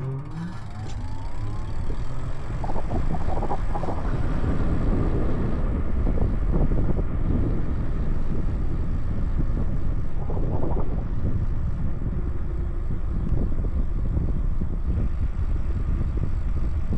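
Wind noise on the microphone of a moving e-bike, growing louder over the first few seconds as the bike picks up speed from a stop. In the first two seconds the e-bike's motor gives a rising whine as it accelerates.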